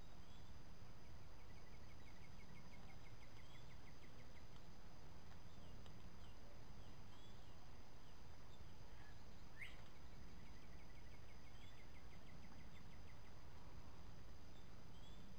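Woodland ambience: a bird sings a fast trill of short high notes twice, once in the first few seconds and again about ten seconds in, with scattered short chirps and a quick rising call just before the second trill. Underneath are a steady high insect drone and a low rumble.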